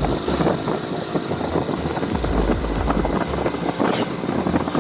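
Motorcycle engine running while the bike rides along a road, with wind gusting on the microphone.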